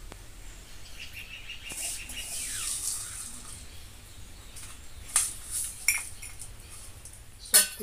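Crumbled jaggery being scooped with a mug and tipped into a pot of rice flour: soft grainy rustling and scraping, with a few sharp clinks of the mug against the brass bowl and a louder knock near the end. A bird chirps in the background early on.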